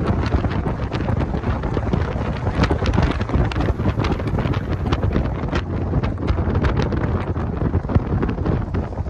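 Heavy wind buffeting the phone's microphone in an open-top Mazda Miata at speed, over the car's road and engine noise, with frequent short crackles.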